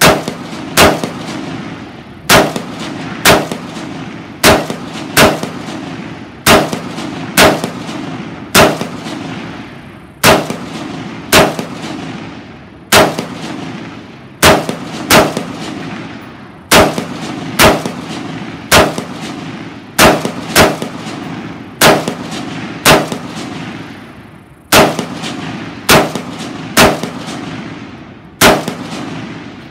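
Beretta ARX-100 rifle firing .223 full metal jacket rounds in slow semi-automatic fire: about 25 single shots, roughly one a second, each followed by a short echo.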